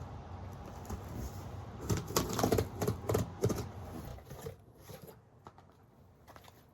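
A quick run of sharp clicks and rattling scrapes from hands handling a pocket knife and a cardboard box. It starts about two seconds in and dies away after about three seconds.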